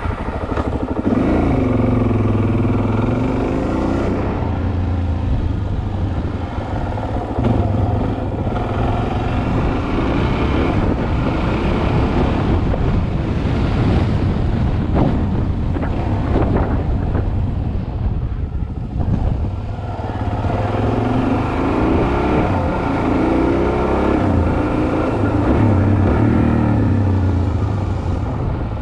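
Suzuki DR-Z400S single-cylinder four-stroke engine under way, its revs rising and falling as it accelerates up through two gears, eases off for a turn and shifts back down.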